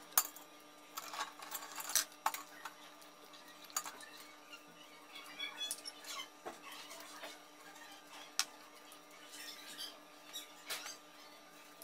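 A metal spoon clinking and scraping against grilled scallop shells and a metal tray, in scattered sharp clicks a second or two apart.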